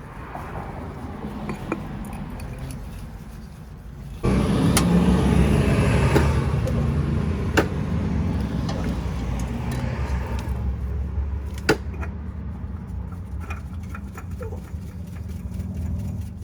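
Low rumble of a motor vehicle that suddenly gets louder about four seconds in and slowly eases off, with a few sharp clicks over it.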